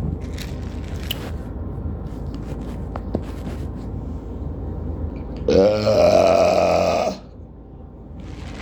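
A person's long, loud burp lasting nearly two seconds, starting about five and a half seconds in, its pitch dropping at the start. Before it there is only a low steady background hum with a few faint clicks.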